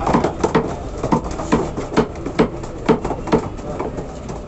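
Meat cleaver chopping chicken on a wooden chopping block, in sharp, regular strokes about two a second.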